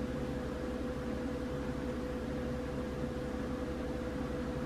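Steady machine hum and hiss with one constant mid-pitched tone.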